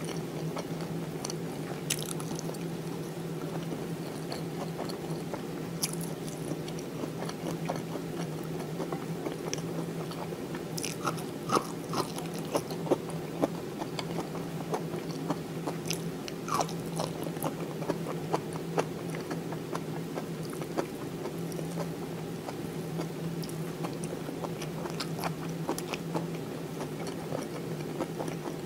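Close-miked chewing and biting with scattered small mouth clicks and smacks, from someone eating fried cod and rice by hand. A steady low hum runs underneath.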